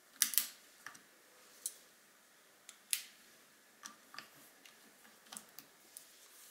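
About a dozen light, irregular clicks and taps, the loudest a double click near the start and another about three seconds in: a screwdriver and small metal parts being handled on a scope's mounting rings.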